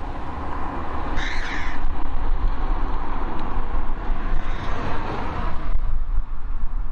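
Wind rumbling on the microphone, with a bird calling about a second in and a fainter call a few seconds later.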